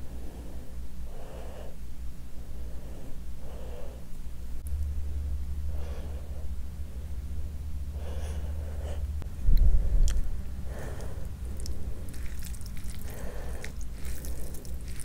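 Close-miked breathing through the nose, a soft breath about every two seconds, over a low hum, with one heavy low thud about two-thirds through. Near the end come wet squelching clicks of a hand mixing curry into rice.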